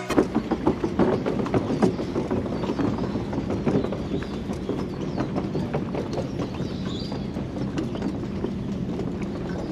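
A fishing boat under way: a steady engine drone with a constant fast clatter of small knocks over it. It is loudest and most broken up in the first couple of seconds, then settles.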